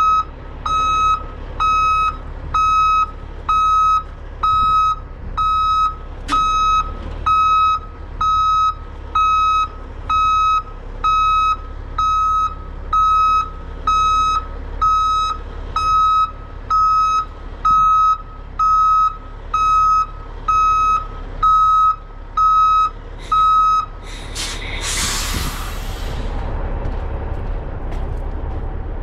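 Truck backup alarm beeping about once a second, roughly two dozen times, over a diesel engine's steady low running. When the beeping stops, a loud hiss of air follows as the air brakes are set.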